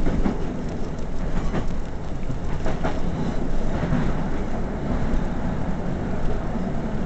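Diesel passenger train running along the line, heard from inside the carriage: a steady low rumble of wheels on rail with a few sharp clicks from the track joints.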